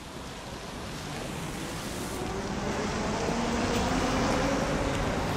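Street traffic noise, a steady rushing of passing cars that slowly grows louder.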